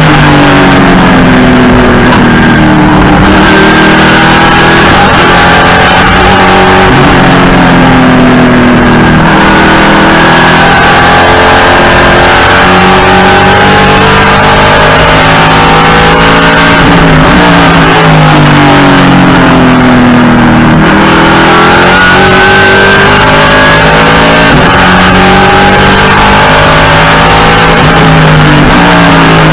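Race car engine heard very loud from inside the cockpit under hard acceleration. Its pitch climbs again and again through the gears, then falls back on downshifts into the corners, with road and wind noise underneath.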